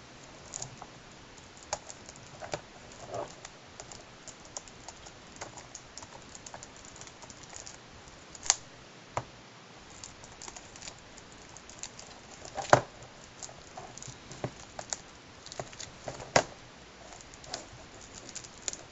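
Hands picking and fiddling at the packaging of a Blu-ray box set: irregular small clicks and taps, with a few louder sharp clicks. The packaging is proving difficult to open.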